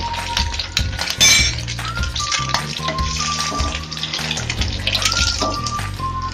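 Background music with a repeating melody and bass line, over hot oil sizzling in a frying pan as fried boiled eggs are lifted out. There is a brief louder noise about a second in.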